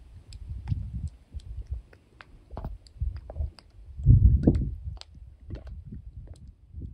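Wind buffeting the camera's microphone in uneven gusts, strongest about four seconds in, with scattered sharp clicks and crackles over it.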